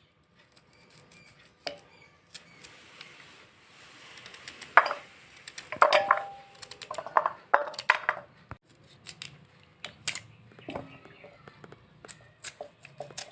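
Irregular clicks and knocks of kitchen utensils and vessels, loudest in a cluster in the middle, with a brief ringing tone about six seconds in.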